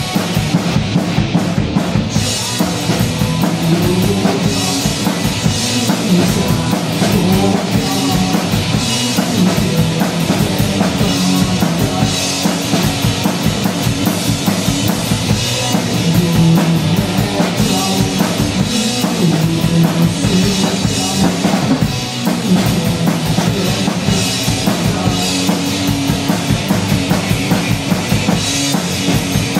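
Live rock band playing an instrumental passage: a full drum kit keeps a steady driving beat under electric guitar played through an amplifier. No vocals.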